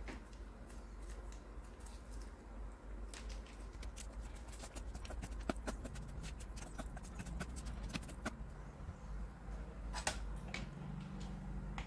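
Wooden chopsticks clicking and scraping against a plate as fried instant noodles are tossed with their sauce, a run of light irregular taps. About ten seconds in, a couple of sharper clinks from a glass clip-top jar being handled.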